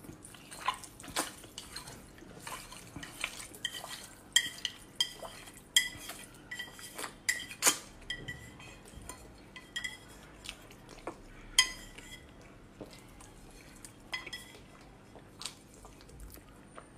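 Chopsticks clinking against the bowl of noodles, many sharp, irregular clinks with a short ring, between the sounds of noodles being slurped and chewed.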